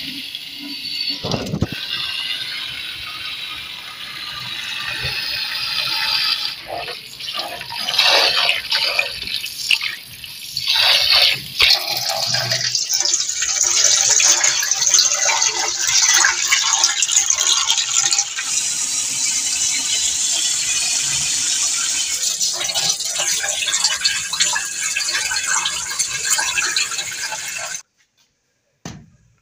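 Uncooked rice grains rattling as they are poured into a steel dish, then water running and splashing as the rice is rinsed and the cloudy rinse water is poured off into a steel sink. The water sound is steady through the second half and stops abruptly near the end.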